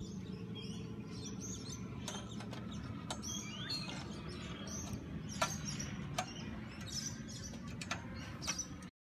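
Birds chirping repeatedly over a steady low background hum, with a handful of sharp, irregular metal clicks from a hand tool tightening the bottom fixing of a tripod antenna mount's steel base plate. The sound cuts off abruptly just before the end.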